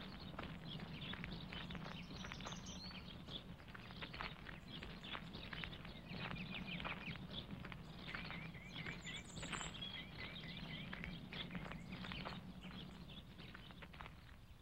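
Footsteps of two people walking on a leaf-strewn path, with birds chirping and a low steady hum underneath; the sounds fade toward the end.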